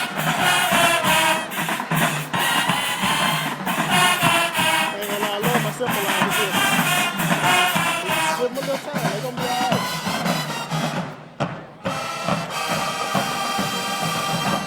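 High school marching band playing: brass over a beating drumline. The band drops out briefly about eleven seconds in, then comes back on a loud held final chord that cuts off sharply.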